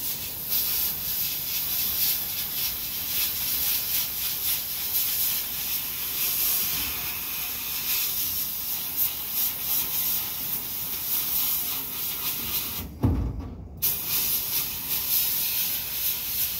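Sandblast gun in a blast cabinet blasting a rusty hammer: a steady hiss of compressed air and abrasive that cuts out for about a second around thirteen seconds in, then starts again. The air is still coming from the 100 litre compressor's tank; its motor has not yet kicked in.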